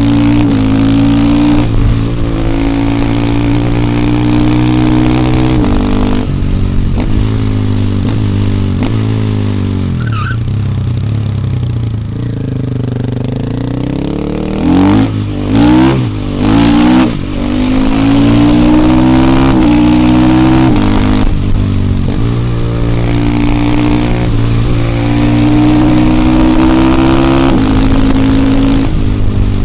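KTM 450 EXC supermoto's single-cylinder four-stroke engine under way, pulling through the gears, its pitch dropping at each shift. About halfway it slows, then revs three times in quick short bursts before pulling away again.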